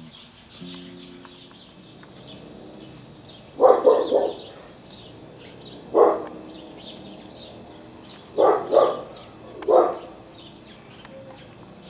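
A dog barking in four short bouts, about seven barks in all, over steady high chirping of small birds.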